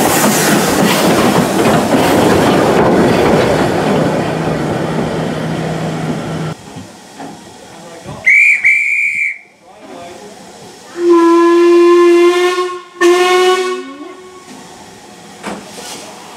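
Loud steady steam hiss from Ivatt Class 2MT locomotive 46447 close alongside, cutting off abruptly about six seconds in. Then a short high whistle blast, followed by a steam locomotive's whistle: one long blast and then a shorter one that falls away in pitch at the end.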